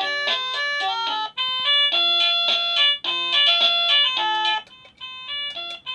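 Wireless doorbell receiver playing electronic chime melodies through its small speaker. Short tinkling tunes follow one another with brief breaks between them, as the chime selections are played through.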